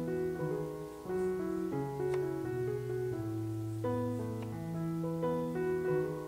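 Background piano music: a slow melody of held notes over chords.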